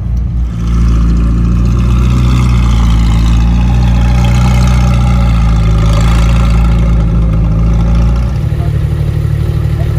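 Car engine running loudly and steadily. About eight seconds in it drops to a lower idle with a regular pulse.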